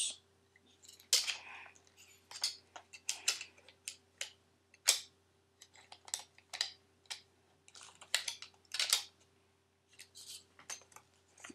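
Irregular clicks and clacks of plastic parts as a UHC Mini Uzi airsoft gun is handled and worked at, a dozen or more short sharp knocks with gaps between them.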